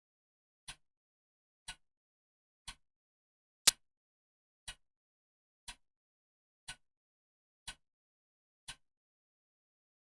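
Clock ticking steadily at one tick per second, each a short sharp click with silence between. One tick about four seconds in is much louder than the rest, and one beat is skipped near the end.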